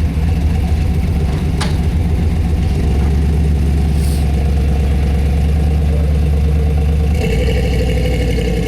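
Big plow truck's engine running steadily, loud and low. There is a sharp click about a second and a half in, and near the end the engine note changes, with a higher tone coming in.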